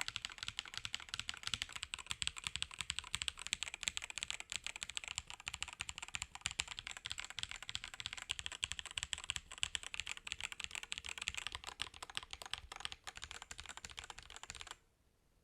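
Fast, continuous typing on an Attack Shark K86 gasket-mounted mechanical keyboard, many keystrokes a second. It stops suddenly near the end.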